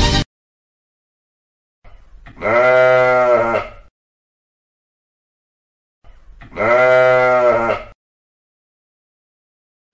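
Two long bleats from an animal, each about a second and a half, the second about four seconds after the first, with silence around them.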